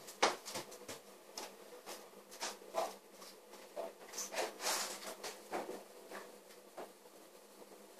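Irregular faint clicks, taps and rustles of small objects being handled, about one or two a second, over a faint steady room hum.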